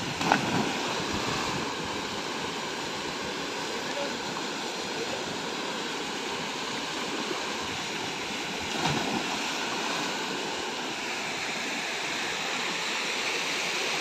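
Steady rush of a waterfall pouring into a rock pool, with two brief splashes of people jumping into the water, one just after the start and one about nine seconds in.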